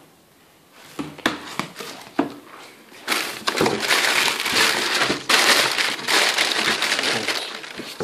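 Thin plastic wrapping bag crinkling and rustling as hands grab and pull at it, after a couple of light knocks.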